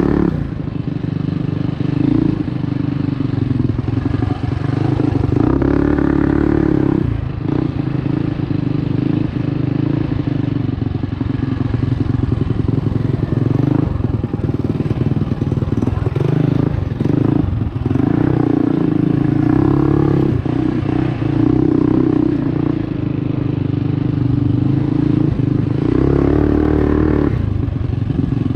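Predator 212cc Hemi single-cylinder engine of a Trailmaster MB200 mini bike running hard on a dirt trail, revving up and dropping back several times as the throttle is opened and closed. There are short rattles and knocks as the bike goes over rough ground.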